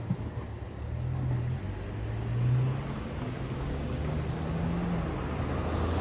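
A road vehicle's engine running and pulling away, its low hum rising slowly in pitch, with wind noise on the microphone.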